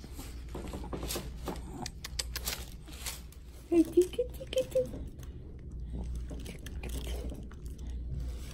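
Crinkling and rustling of paper exam-table covering, with a baby's short, high cooing sounds about four seconds in, over a steady low room hum.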